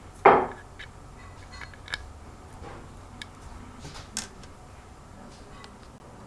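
Handling of 3D-printed plastic gearbox parts: one sharp plastic knock about a quarter second in as a gear is fitted into the printed housing, then a few faint clicks, over a low steady hum.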